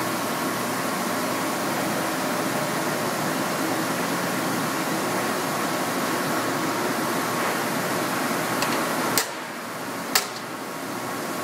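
Steady machinery hum, with two sharp metallic clicks about a second apart near the end as steel press brake tooling is handled and set on the die.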